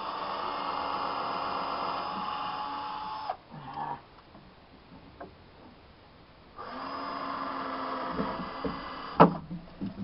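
Cordless drill running steadily as it bores holes into wooden framing: the first run stops about a third of the way in, and a second run starts about two-thirds in and ends with a sharp knock.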